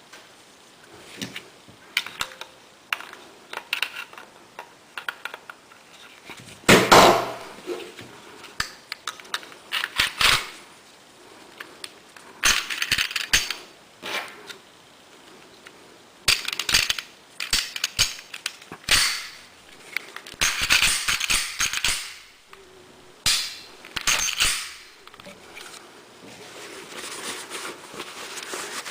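Metal parts of a Ruger SR9 pistol being handled during cleaning: many sharp metallic clicks and several longer scraping sounds of a second or two each.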